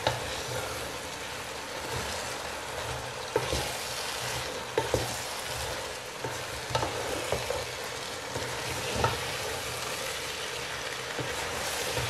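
Wooden spatula stirring chopped radish pods and peas in a nonstick pot, with knocks and scrapes against the pan every second or two over a steady sizzle of frying on high heat.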